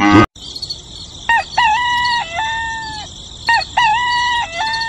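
A rooster crows twice, each crow about a second and a half long, over a steady high hiss. Just before the first crow, a loud sound cuts off abruptly.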